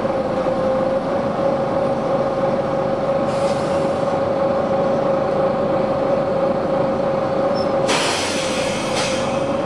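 Volvo B9TL double-decker bus engine and cooling fan running steadily with a constant whine. A short, faint hiss of compressed air comes about three seconds in, then a loud burst of air hissing from the bus's air system near the end, lasting about a second and a half.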